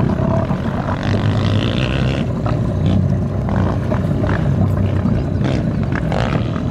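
Small 3.5 hp outboard motor on a dinghy running steadily, with a few light clicks over it.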